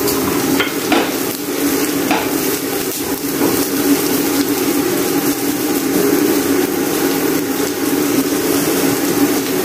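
Chopped onion sizzling as it sautés in oil in a nonstick frying pan, stirred and scraped with a wooden spatula. A few knocks of the spatula against the pan come in the first three or four seconds.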